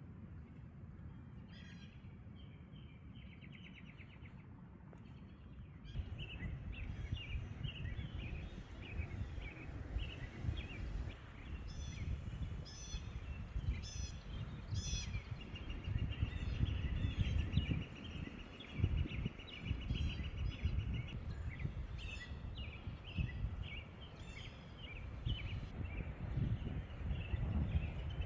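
Several birds chirping and trilling, over wind buffeting the microphone in a low, gusty rumble that strengthens about six seconds in.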